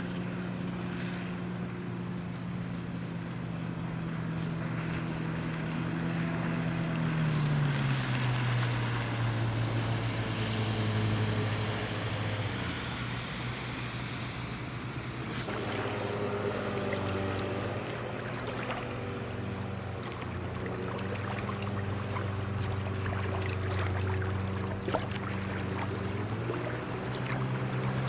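Outboard motor pushing an inflatable boat at planing speed, running steadily with a hiss of spray and wind under it. Its pitch drops about a quarter of the way in, and the sound shifts abruptly about halfway.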